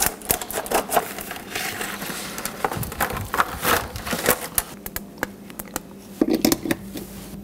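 Stiff clear plastic packaging crinkling and crackling in irregular bursts as an LED strip light is pulled out of it, the handling noise thinning out near the end.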